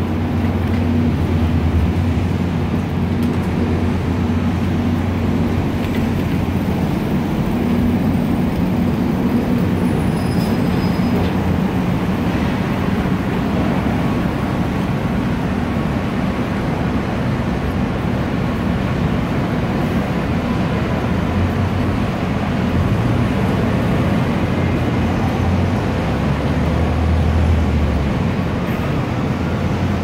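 Steady low hum of heavy truck engines running, over the continuous noise of city street traffic; the engine hum swells and eases, louder again a few seconds before the end.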